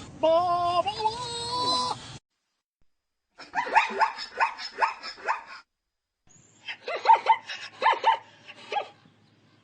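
A short stretch of music for about two seconds, then, after a brief pause, a zebra barking in two bouts of rapid, rising yelps, about four a second.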